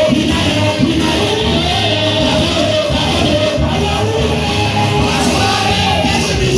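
Loud church praise music with singing over a steady, repeating beat, echoing in a large hall.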